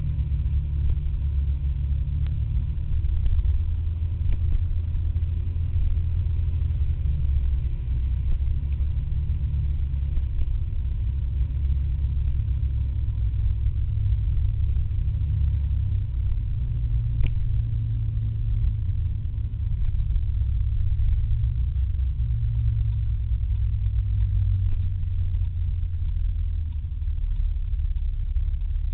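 Steady low rumble of riding a scooter in traffic: wind buffeting the mounted camera's microphone over the engine's drone, which shifts slightly in pitch partway through.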